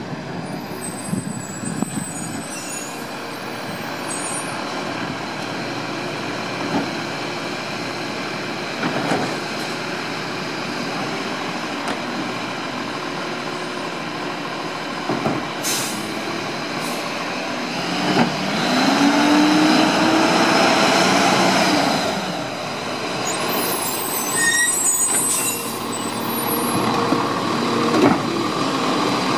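Automated side-loader garbage truck's diesel engine running as the truck drives up and pulls in to a curbside cart. The engine note rises, holds and falls about two-thirds of the way through, with short hisses of the air brakes.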